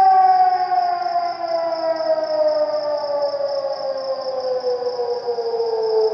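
Civil defence siren sounding a long, loud wail, its pitch falling slowly and steadily, with several overtones above it. It is the annual commemorative siren sounded across Cyprus on 20 July for the Turkish occupation of the north.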